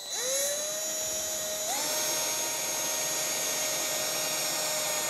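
Cordless drill running with a wood drill bit, drilling a handle hole through a kitchen unit door. Its motor whines at a steady pitch after spinning up, and about a second and a half in the sound turns louder and rougher.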